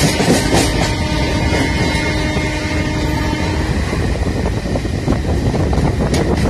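Train running on the rails: a steady loud rumble with a faint steady whine that stops a little past halfway, and a couple of sharp clanks.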